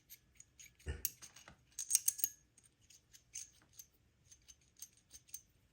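Light metallic clicks and rattles of a Zenoah G320 clutch's shoes being swung and flicked by hand, testing that they move freely after being sanded for clearance. There is a duller knock about a second in, and a quick run of louder clicks around two seconds.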